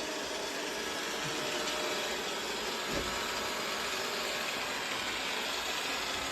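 A Roomba robot vacuum running steadily, with a faint knock about three seconds in.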